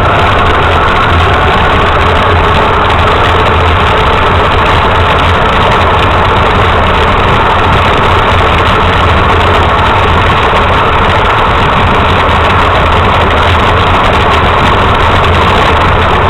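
RC truck's engine running steadily, a loud even drone with no revving or change in pitch.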